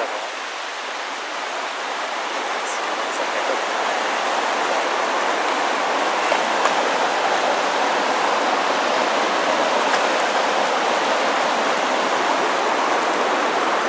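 Fast river current rushing and churning at the bank: a steady, loud hiss of flowing water.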